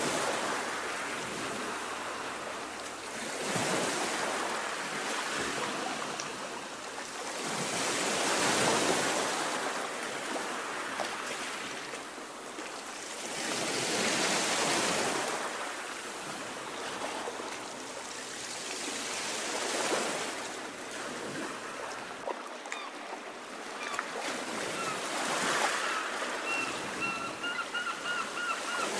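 Choppy sea waves washing in, the sound swelling and easing about every five seconds.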